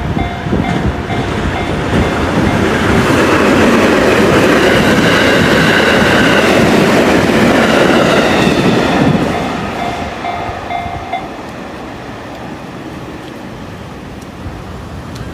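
A train passing over a level crossing, its wheels clattering on the rails, loudest in the middle and fading away about ten seconds in. The crossing's warning bell rings over it and stops about a second later, leaving road traffic.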